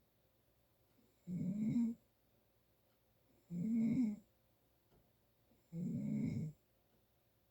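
A person snoring in sleep, the snoring brought on by allergies: three low-pitched snores about two seconds apart, each lasting under a second, with quiet breaths between.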